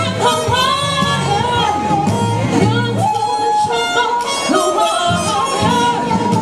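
A woman singing into a microphone over instrumental backing music, her voice amplified and holding wavering, sustained notes.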